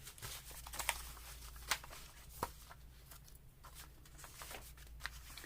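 Faint handling of papers on a tabletop: soft rustles with a few scattered sharp taps, over a low steady hum.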